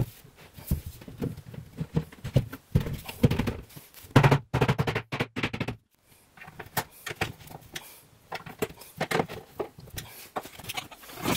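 Irregular clicks and light knocks as melamine-faced fibreboard wardrobe panels are handled and small connector fittings are set into their holes, busiest around the middle.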